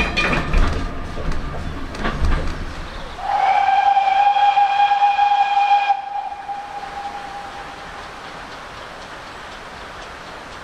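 A GWR pannier tank's steam whistle sounds one long, steady blast of about three seconds, then trails away over the next two. Before it, the autocoach cab rattles and clicks as it runs over the track.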